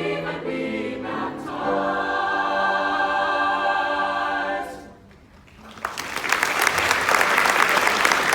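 A choir sings the closing phrase of a song and holds the final chord, which dies away about five seconds in. After a short pause an audience breaks into applause.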